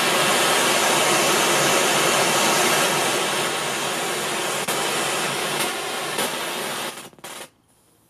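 Loud static hiss of an untuned FM radio from a Teufel Boomster speaker while its tuner searches for a station. The hiss holds steady, eases slightly partway, then cuts off about seven seconds in after a couple of short bursts.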